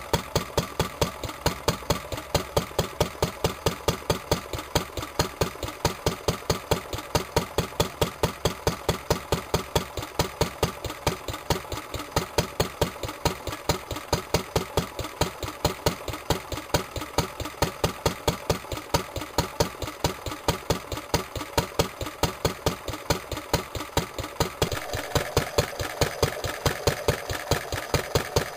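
A 1942 Lister D type single-cylinder stationary engine running steadily, with an even, regular beat of exhaust pulses. About three seconds before the end the sound changes to a slightly louder engine beat, as a second Lister engine is heard.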